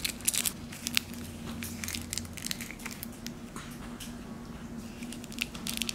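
Clear plastic lollipop wrapper crinkling and crackling in quick, irregular crackles as a baby capuchin monkey bites and mouths the wrapped lollipop, over a steady low hum.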